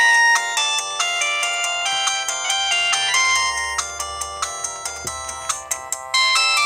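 LG MG160a mobile phone playing its alarm tone: an electronic ringtone melody of short, quick notes through the phone's small speaker, with a louder new phrase starting near the end.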